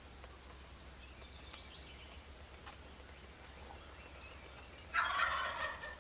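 Wild turkey gobbler gobbling: faint gobbles early on, then one loud rattling gobble about five seconds in.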